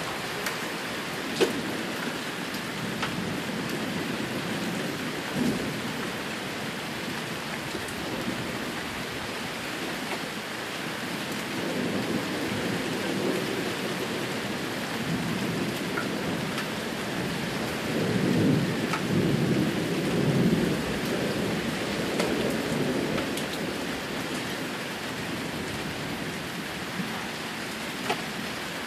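Steady heavy rain pattering down during a thunderstorm, with low rolls of thunder. One rumble swells about a third of the way in, and a louder one comes about two-thirds of the way through.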